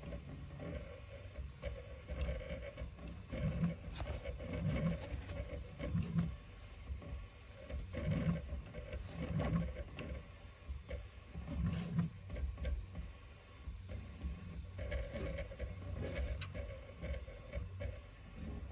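Prusa 3D printer running and making a strange sound: low pulses that come back about every second, with a few sharp clicks in between.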